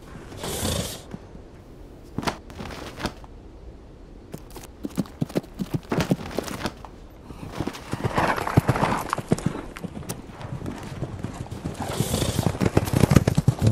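Bull snorting with clopping hoof knocks, the knocks coming faster and denser in the second half, with a loud snort near the end.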